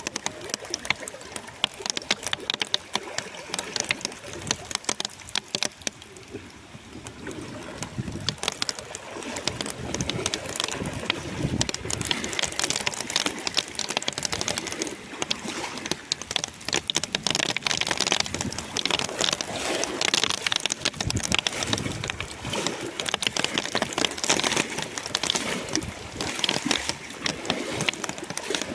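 Heavy rain in a storm: a dense patter of drops, easing a little a few seconds in and then growing heavier.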